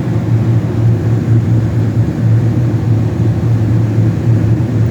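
Walk-in cooler's evaporator fans running steadily, a low hum under a rush of moving air.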